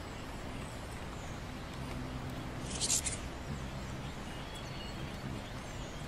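Steady background hiss with a low hum, and one brief high-pitched chirp about halfway through.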